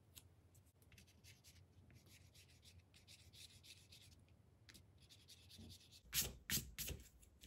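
Eraser rubbing back and forth over watercolor paper in quick, scratchy strokes, taking the pencil guide lines off around the hand lettering. Near the end come a few louder sweeping strokes across the card.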